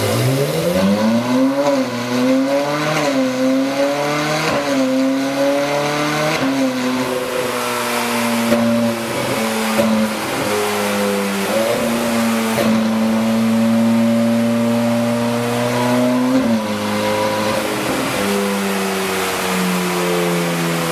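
Ferrari 458 Spider's 4.5-litre flat-plane V8, through an Akrapovic exhaust, running on a roller dyno. It revs up sharply at the start and wavers. It then holds fairly steady revs with several brief dips, and eases down toward the end.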